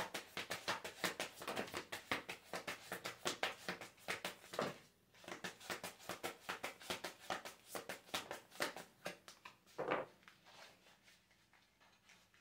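A deck of tarot cards being shuffled by hand: a fast run of light card slaps and flicks, with a brief pause about five seconds in, thinning out after about ten seconds.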